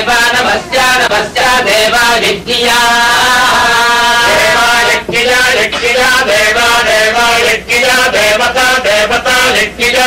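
Men chanting Vedic Sanskrit verses in a steady recitation of held notes, with short breaks between phrases.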